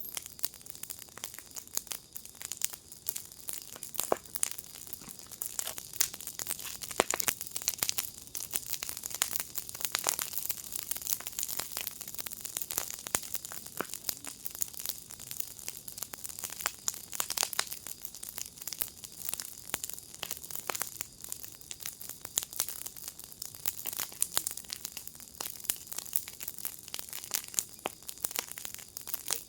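Wood fire in a firepit crackling steadily, with frequent sharp pops and snaps over a continuous hiss.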